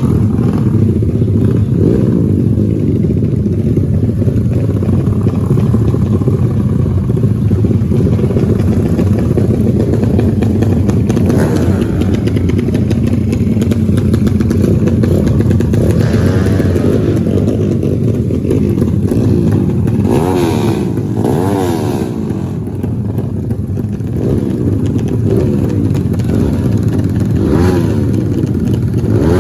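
Race motorcycles running hard, their engines revving up and down in pitch.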